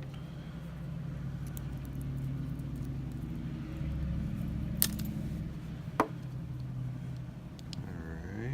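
Two sharp metallic clicks, about a second apart near the middle, with a few fainter ticks, as a small screwdriver works on the stripped screws of a lock's disassembled body. A steady low hum runs underneath.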